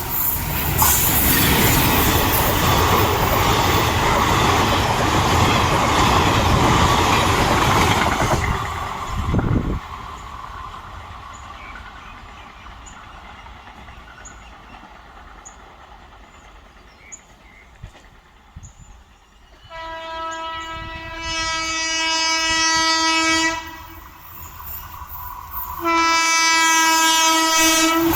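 A train of Indian Railways passing at speed, a loud rush of wheels on the track for about nine seconds that then dies away. Later a locomotive horn sounds twice in long, steady blasts: once about twenty seconds in and again near the end.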